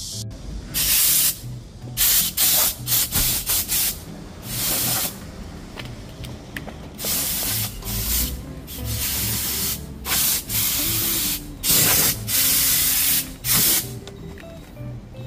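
Compressed-air blow gun on a coiled hose, fired into a car's interior in a rapid string of short hissing bursts. Most bursts are well under a second, a few last about a second.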